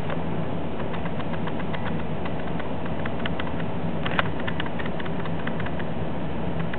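Hard plastic exercise ball with a mouse inside rolling across a kitchen floor: a steady rumble with many small clicks and rattles, one sharper click about four seconds in.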